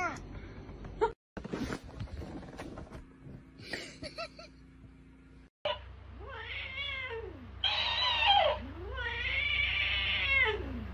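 A cat giving three long, angry meows, each rising and then falling in pitch, in the second half.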